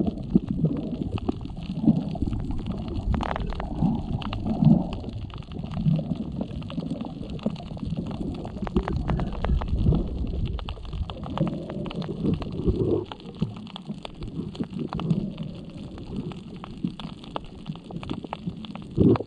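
Water heard from underwater by a camera's microphone: an uneven, muffled low rumble and sloshing, scattered with many small clicks.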